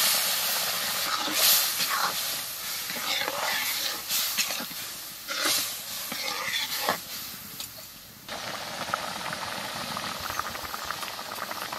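Boiled red lentils and spinach hissing and sizzling in a hot kadai of oil and fried onions, the sizzle dying down as a steel ladle stirs it with short scrapes and knocks against the pan. From about eight seconds in, a steadier hiss of the dal cooking on.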